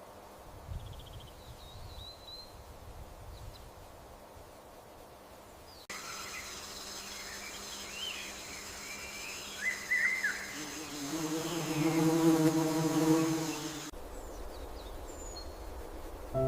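Garden ambience of birds chirping and insects buzzing, with steady high whining tones from about six seconds in. The loudest sound is an insect buzzing close by for about three seconds near the end, which cuts off suddenly.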